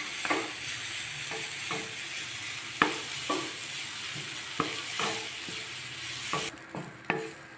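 Wooden spatula scraping and knocking against a nonstick frying pan as grated coconut is stirred and dry-roasted, over a steady hiss of light sizzling. The hiss cuts off abruptly near the end.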